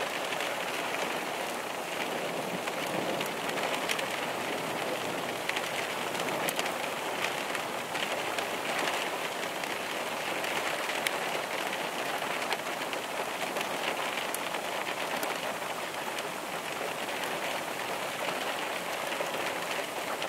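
Steady rain falling: a constant hiss with scattered drop ticks.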